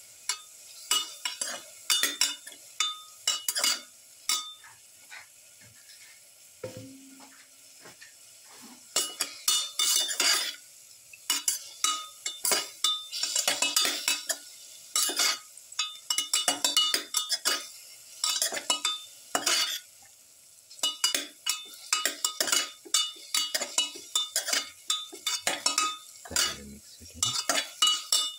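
Metal spoon scraping and clinking against a pot while cauliflower florets are stirred in hot oil and spices, with a faint sizzle between strokes. The stirring eases off for a few seconds about five seconds in, then goes on.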